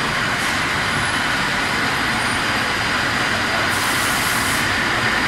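Wickman 1 3/8"-6 six-spindle automatic bar lathe running, a steady, dense mechanical noise.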